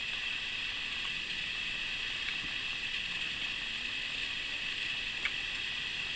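A steady high hiss at an even level, with a couple of faint ticks.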